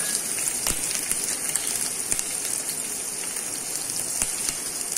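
Hot oil sizzling steadily in a steel pan as a tadka of asafoetida, mustard seeds, cumin and chopped green chillies fries, with a few sharp pops.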